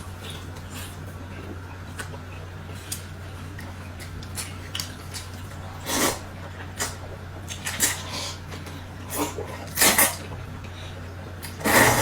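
Eating utensils clicking and knocking against bowls and dishes during a meal, scattered short strokes with a few louder ones, the loudest just before the end, over a steady low hum.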